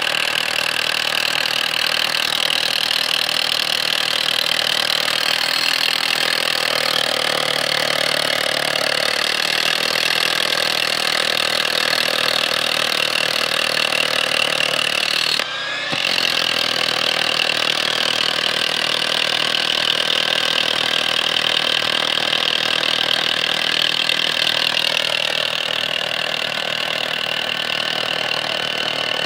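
Hilti rotary hammer drill with a 1 1/2-inch bit hammering and boring into sandstone, running steadily. It lets up briefly about halfway through, then carries on.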